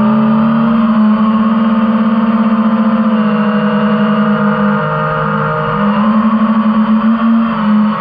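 Small drone's electric motors and propellers humming steadily, the pitch shifting slightly and the sound pulsing as the drone flies.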